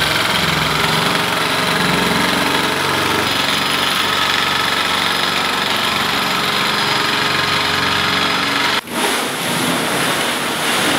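Corded handheld electric double-cut shear running steadily as it slices through thin 3003 aluminum sheet. About nine seconds in it stops abruptly, and a rustling clatter of the thin aluminum sheet being moved follows.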